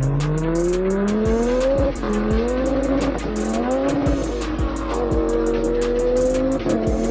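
A car engine accelerating hard: its pitch climbs, falls back sharply at each upshift, and climbs again several times. It plays over trap music with a heavy deep bass and fast, evenly spaced hi-hat ticks.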